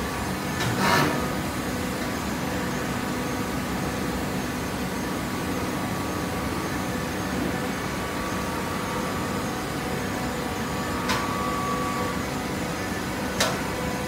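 Horizontal hydraulic baler running steadily: a mechanical hum with several steady tones. A short burst of noise comes about a second in, and two sharp clacks near the end.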